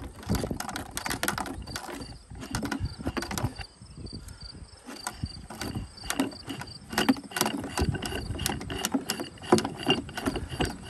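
String-trimmer head of a DR walk-behind trimmer mower being turned and unscrewed by hand off its loosened retaining bolt, with irregular clicks and knocks of the plastic spool and metal parts as it turns.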